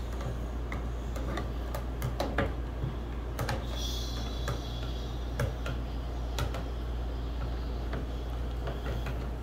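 Irregular light clicks and knocks of plastic toy dishes and utensils handled at a toy kitchen's sink and stovetop, with a brief hiss about three and a half seconds in.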